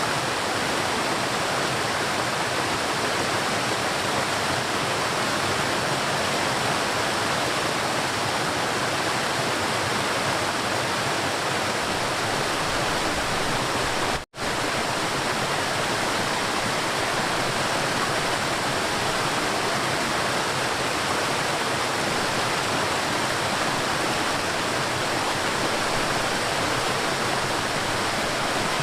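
River water flowing with a steady, even rushing. About halfway through, the sound cuts out for a split second and then resumes.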